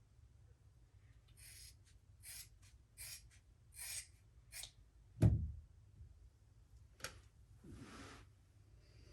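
A sneeze building up: five short, sharp intakes of breath, then one sudden muffled sneeze a little after five seconds in, the loudest sound, followed by a softer breath out near the end.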